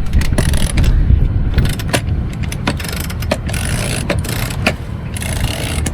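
Scattered sharp clicks and knocks of sailboat deck hardware as the boom is pulled down and the boom vang is worked, over a steady low rumble.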